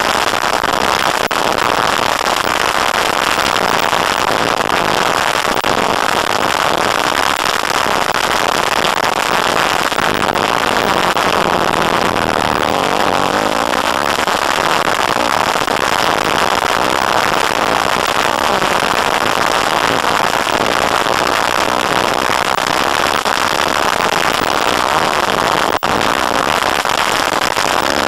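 Dirt bike engine running under way, picked up by a bike-mounted camera's microphone as a steady, harsh, crackling noise with no clear pitch, mixed with wind. There is a brief dropout near the end.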